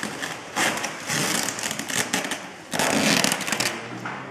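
Clear plastic bags and bubble wrap crinkling as they are handled and wrapped around a robot, in a few loud, irregular bursts.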